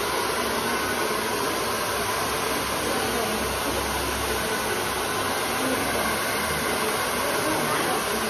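Two hand-held hair dryers running together, making a steady, even rush of fan and motor noise.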